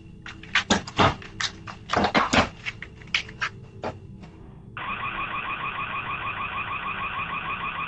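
Irregular sharp knocks and clatters, then about five seconds in a home security alarm siren switches on: a loud, high electronic tone with a fast warble that keeps sounding.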